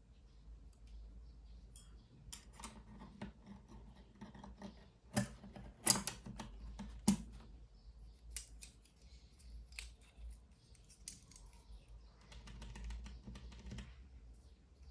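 Sparse, irregular clicks and handling noise from a Filco Minila Air mechanical keyboard with brown switches, with three louder knocks about five to seven seconds in and a scraping stretch near the end.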